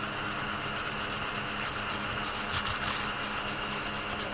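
Scratch-off card being rubbed with a handheld scratcher to clear its coating: continuous dry rubbing and scraping.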